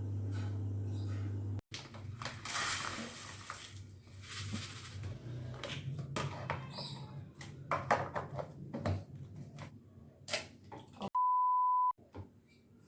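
A steady low hum that cuts off abruptly, then a run of knocks, clicks and rustling handling noises, and near the end a single electronic beep of just under a second, the loudest sound.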